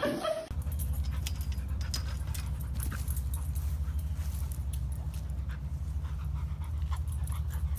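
A dog panting, with scattered light clicks over a steady low rumble.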